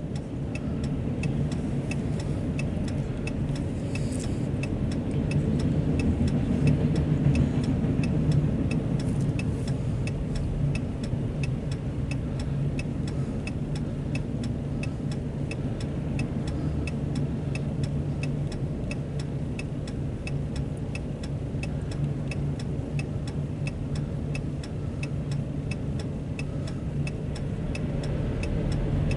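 Empty autorack freight cars rolling past on the track: a steady low rumble, slightly louder for a few seconds near the start. A faint, evenly spaced ticking runs through it.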